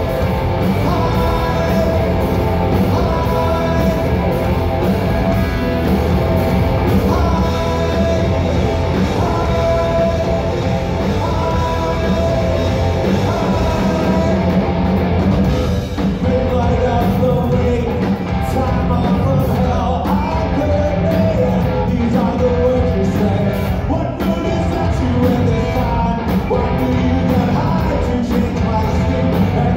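Live rock band playing: electric guitars, bass and drum kit, with a singing voice over them.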